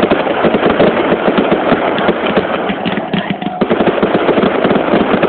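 Fireworks bursting in a dense, rapid crackle: many sharp pops a second, running on without a pause, from white crackling shells overhead.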